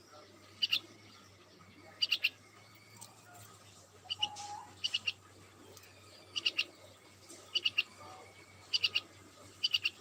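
A small bird chirping, repeating quick groups of two to four sharp, high chirps about once every second or so.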